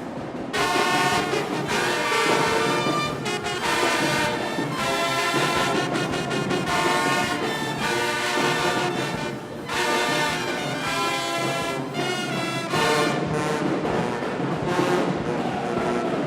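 A marching band's brass section playing a loud, full-sounding passage, with short breaks between phrases.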